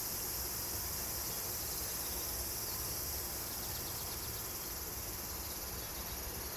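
Insects singing in a steady, high-pitched chorus without a break.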